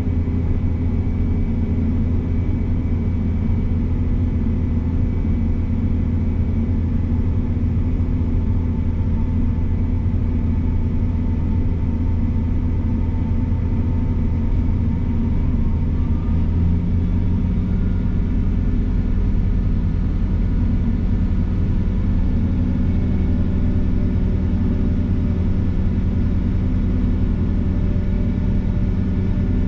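Construction machine's engine running steadily under load, its low note shifting a little about halfway through.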